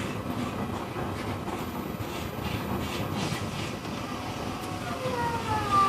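Running noise of an E531 series electric train heard inside a motor car: a steady rumble of wheels on the rails. From about four seconds in, several falling whining tones come from the traction inverter and motors as the train slows for its next station.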